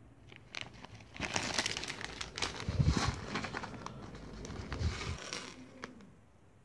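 Small steel machine screws, nuts and washers poured out of a plastic bag onto a wooden floor. They clatter and jingle in a dense run of clicks for about four seconds, with the bag crinkling, then a few last clicks as they settle.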